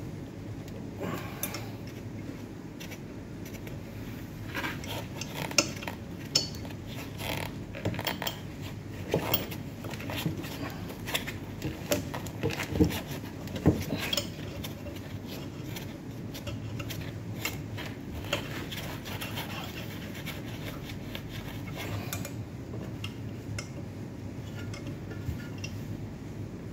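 Irregular metallic clicks and clinks from hands working on the fittings and tubing inside a Melag 31B autoclave, thickest through the middle of the stretch and sparser near the end. A steady low hum runs underneath.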